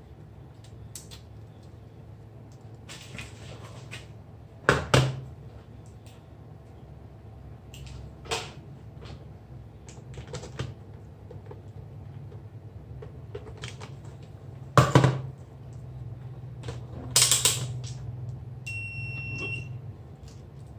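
Scattered clicks and knocks of small tools and parts being handled at a camera repair bench, over a steady low hum. The loudest are a quick double knock about five seconds in and a single knock about fifteen seconds in. A short electronic beep, a second or so long, sounds near the end.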